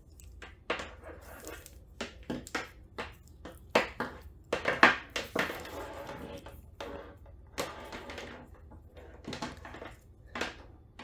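A power cord being handled: its plastic plugs clicking and knocking and the cable rustling and tapping, in an irregular run of sharp clicks and scrapes that is busiest about halfway through.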